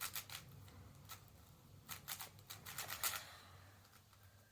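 5x5 Rubik's cube being turned by hand: a few short flurries of plastic clicks as the layers are turned, in the reduction-then-3x3 stage of the solve.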